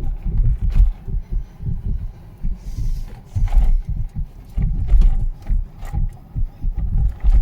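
Low, uneven rumbling and thudding of an electric car on the move, from road and wind noise, with a few faint clicks.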